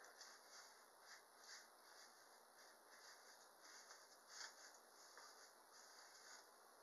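Faint strokes of a hairbrush through natural hair as it is brushed up into a puff, about two strokes a second, stopping shortly before the end.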